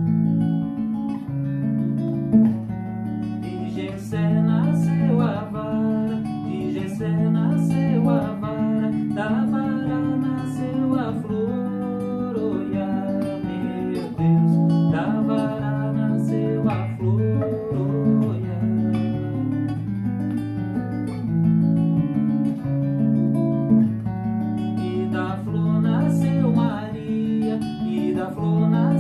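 Nylon-string Yamaha silent guitar, plugged in, played as an instrumental passage: bass notes changing every second or so under chords and a moving melody line.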